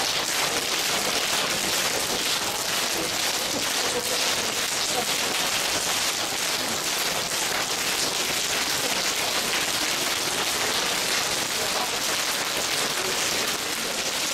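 Paida self-slapping: many open hands slapping on bare arms at the inner elbow, merging into a dense, steady patter like heavy rain.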